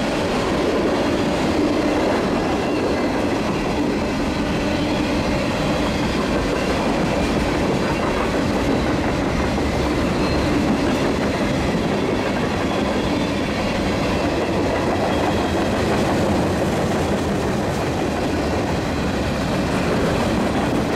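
Mixed freight cars of a fast-moving Union Pacific manifest train rolling past: steady noise of steel wheels running on the rails.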